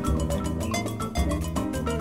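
Instrumental jazz with a Brazilian feel, playing with a steady beat.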